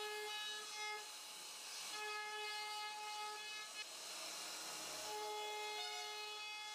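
CNC router spindle whining as its bit carves a relief pattern into a wooden board, with a hiss of cutting. The whine drops out briefly about a second in and again around four to five seconds in.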